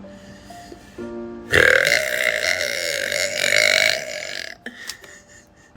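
A single long, loud burp, starting about a second and a half in and lasting about two and a half seconds.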